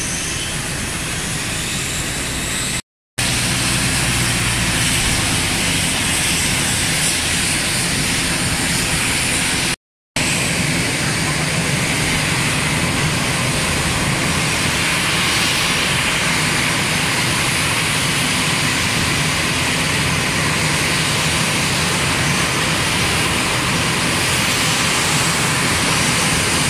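Airbus A320-214's CFM56 jet engines running at taxi power: a steady, loud rush of noise with a high whine on top. The sound drops out briefly twice, at about three seconds and ten seconds in, where the recording is cut.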